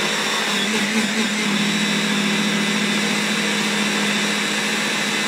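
Handheld stick-blender motor on a mini chopper bowl running steadily, grinding soaked quinoa and chia seeds into a sticky dough.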